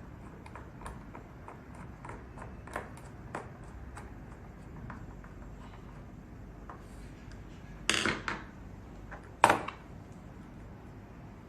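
Small, light metallic clicks of a screwdriver turning small screws into a handheld lock decoder, followed near the end by two louder clattering clinks of metal parts or tools.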